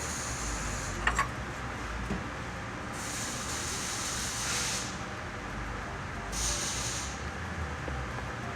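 Short bursts of MIG welding, a hiss each time the arc is struck, three times: once just before a second in, once around three to four and a half seconds in, and once around six and a half seconds in. A pair of sharp clicks comes about a second in, over a steady shop hum.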